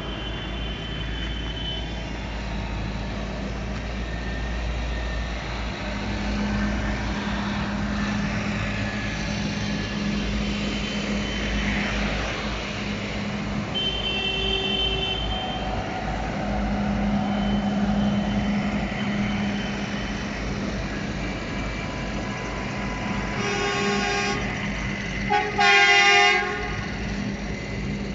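Farm tractors' diesel engines running as a convoy drives past, with horns honking. There is a faint honk about halfway through, then two loud horn blasts near the end, the second the loudest and longest.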